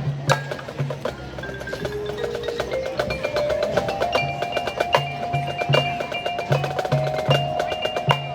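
Marching band music led by the percussion section: a fast, even ticking rhythm with mallet instruments, a sustained line climbing step by step and then holding high, and short low notes pulsing underneath.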